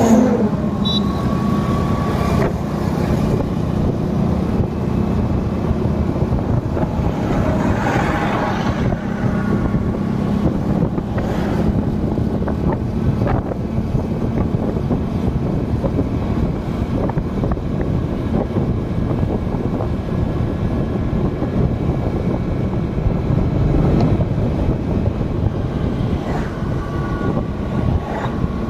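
Steady road and engine noise of a vehicle moving along a highway, with wind on the microphone. One louder swell rises and falls about eight seconds in.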